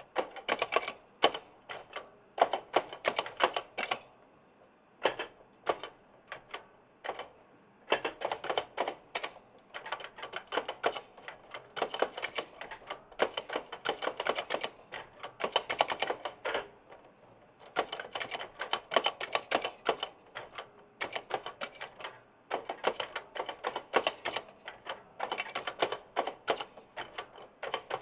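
Typing on a giant mechanical keyboard with clicky Kailh Blue switches: fast runs of sharp clicks, broken by short pauses, with the switch springs audibly ringing.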